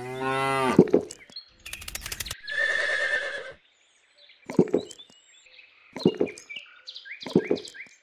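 A cow mooing: one long call with a falling pitch at the start, then a rougher second call about two and a half seconds in, with short sharp sounds at intervals afterwards.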